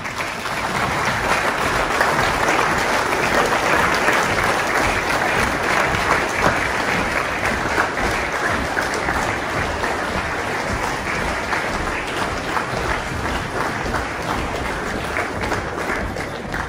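Audience applauding steadily, a dense unbroken clapping that eases off slightly towards the end.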